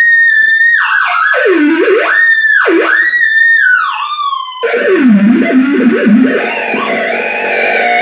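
Hand-built analog noise box sounding a whistling, theremin-like electronic tone that swoops down deep and back up twice. About halfway through it switches to a buzzy, distorted noise with a low wobbling tone.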